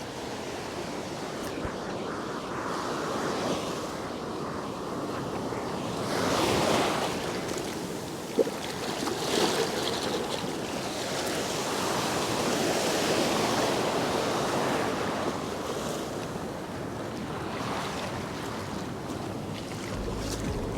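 Ocean surf washing up a sandy beach: waves swell and break several times, with wind buffeting the microphone. One sharp click about eight seconds in.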